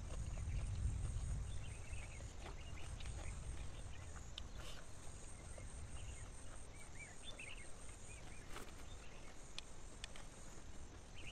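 Quiet rural ambience: a low rumble, loudest in the first couple of seconds, under scattered short high chirps and a few faint clicks.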